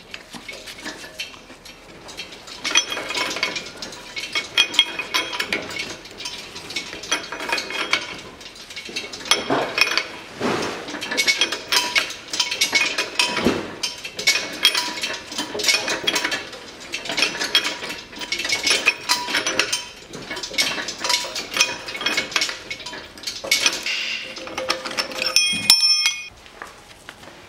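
A 21 mm socket wrench is spun around a 7 mm hex key to run the top nut off a Volkswagen Tiguan front strut's piston rod. It makes rhythmic metallic clicking and clinking in pulses of about one a second, with a brief metallic ring near the end as the nut comes free.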